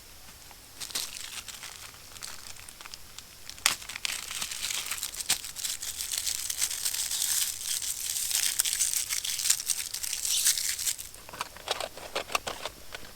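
Crinkling and rustling, as of crinkly material being handled, with scattered sharp clicks; it picks up sharply about four seconds in and eases off near the end.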